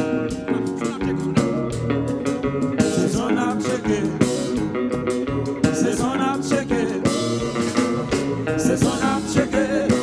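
Live kompa band playing an upbeat groove: electric guitars, bass, keyboards, drum kit and conga drums, with singing over the top.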